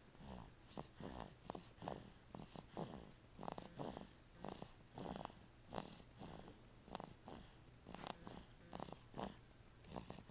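Snoring: a quiet, uneven string of short rattling breaths, about one or two a second.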